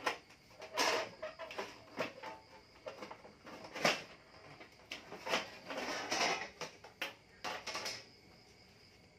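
Irregular knocks and clatter of hard objects being handled and set down, with a short scrape about 6 s in; the loudest knock comes a little under 4 s in, and the clatter stops about 8 s in.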